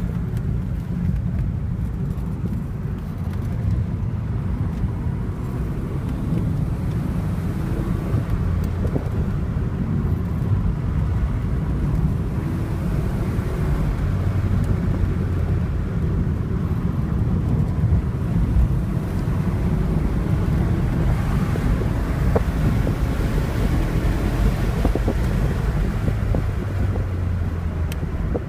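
Alfa Romeo GTV V6 Turbo engine running steadily, a deep low rumble with its note wavering slightly up and down.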